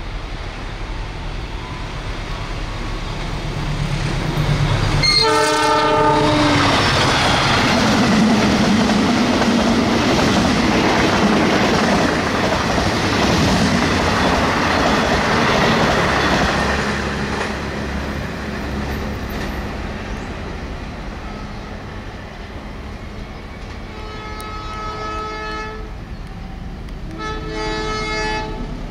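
A diesel locomotive rumbles on its approach, then its horn sounds about five seconds in. An express passenger train then passes close by at speed for about ten seconds with loud wheel and rail noise. Near the end, a distant approaching locomotive sounds its horn twice.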